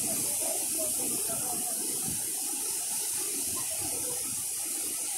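Ocean surf breaking on a sandy beach: a steady rushing wash of waves with no single crashes standing out.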